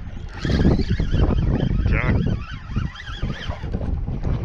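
Wind buffeting the microphone, with a short high, wavering pitched sound about two seconds in.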